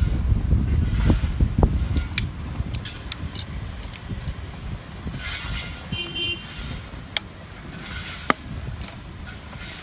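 Small sharp clicks and ticks of tools and fibre being handled at a fusion-splicing job, over low wind rumble that fades after the first two seconds, with a brief high tone about six seconds in.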